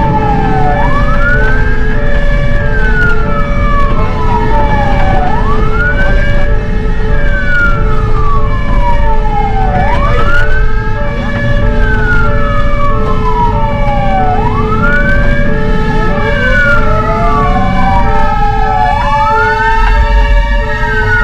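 Fire engine sirens on an emergency run: a wailing siren rising and falling slowly, about once every four and a half seconds, over an alternating two-note siren. A second wail rises in about three-quarters of the way through, with engine and road rumble underneath.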